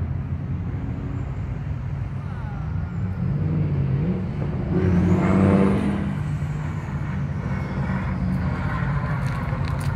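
Old cars driving past one after another, their engines running with a steady low rumble; one passes closest about five seconds in, swelling and then fading.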